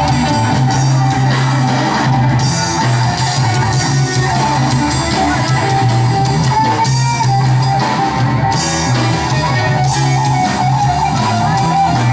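Young garage rock band playing a song, electric guitar over a moving bass line.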